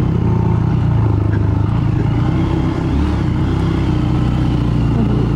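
Honda Grom's small single-cylinder four-stroke engine running at low speed on a rough dirt road, its note wavering slightly over a steady low rumble.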